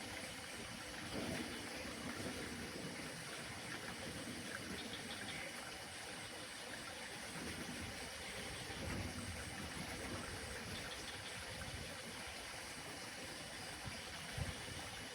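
Outdoor mountain ambience: a steady rushing noise, with brief low rumbles about a second in, around nine seconds and near the end.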